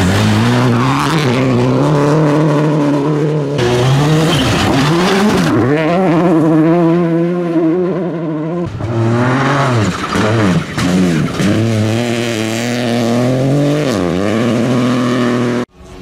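Rally cars at full attack on a gravel stage, one after another, engines revving hard. The revs swing up and down with throttle lifts and gear changes through the corners. The sound cuts off abruptly just before the end.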